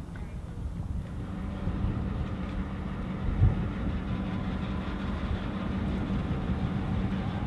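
Tugboat diesel engine running with a steady low hum and a hiss above it, with a single thump about three and a half seconds in.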